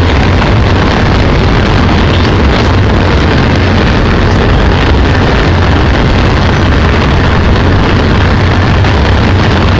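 Train running across a steel truss railway bridge, heard from the carriage window: a loud, steady rumble of wheels on rails and the bridge's steelwork, with wind buffeting the microphone.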